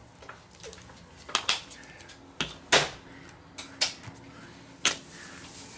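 Plastic squeeze bottle of mayonnaise handled at a wooden table: a scattered series of short, sharp clicks and knocks, the loudest near the middle and again about a second before the end.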